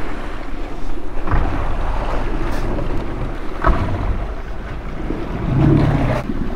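Motorboat running across open water, with wind buffeting the microphone and water rushing along the hull, and a couple of thumps.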